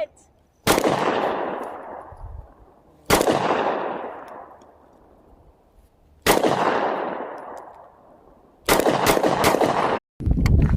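Gunshots: three single shots a few seconds apart, each echoing and fading for a second or two, then a quick string of about five shots near the end. The sound cuts off abruptly just before the end.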